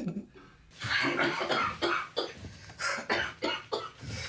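A man coughing repeatedly in a string of short, irregular coughs, starting about a second in.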